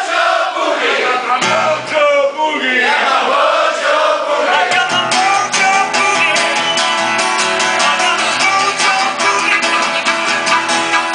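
Voices sing a sliding, wordless line. About five seconds in, a strummed acoustic guitar and a blues harmonica come in together on a boogie, the guitar keeping a steady strumming beat under the harmonica's held chords.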